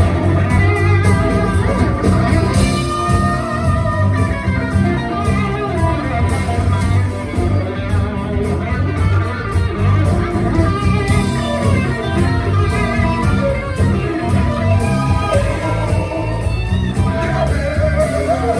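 Blues band playing live: an instrumental break with a guitar lead playing bending notes over the bass and the rest of the band.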